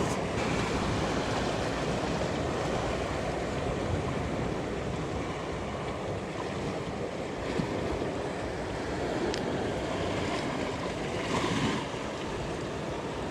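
Ocean surf washing steadily against the shore.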